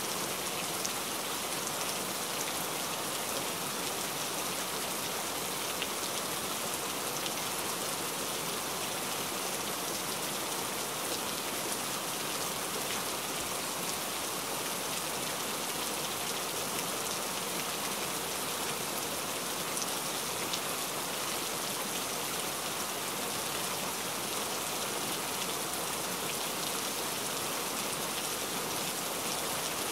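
Heavy rain falling steadily, a dense even hiss of drops on a surface with fine patters of individual drops throughout.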